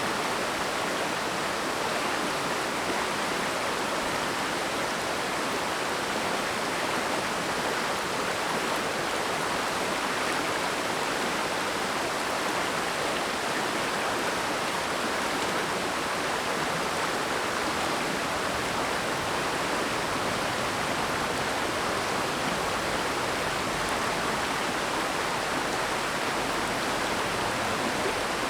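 Mountain stream water rushing steadily over rocks, an even, unbroken rush of water.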